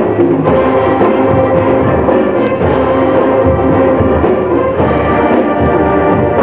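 Marching band (fanfarra) playing: horns hold sustained notes over a steady beat of marching drums.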